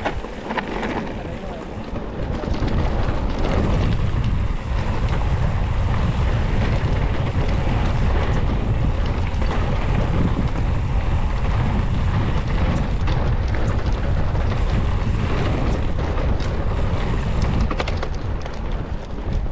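Wind rumbling over an onboard action camera's microphone as a mountain bike rides a cross-country course, with scattered clicks and rattles from the bike. The rumble grows louder about two seconds in, as the bike picks up speed, and then stays steady.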